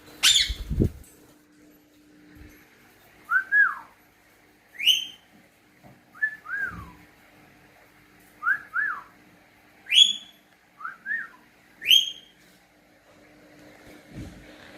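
A person and a pet parrot trading whistles: short two-note whistles that rise and fall, each answered by a sharp rising whistle, about four exchanges in turn. A few low thumps, the loudest about a second in.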